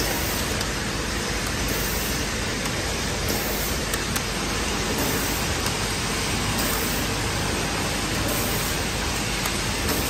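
Automatic bottle filling and labeling line running: a steady, even machine noise with a few faint ticks.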